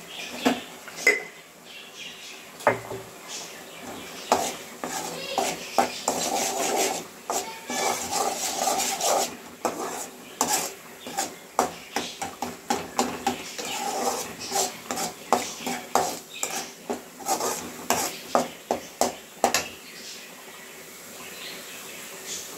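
A cooking spoon scraping and knocking against a cooking pan in quick, irregular strokes as a thick masala is stirred, easing off near the end.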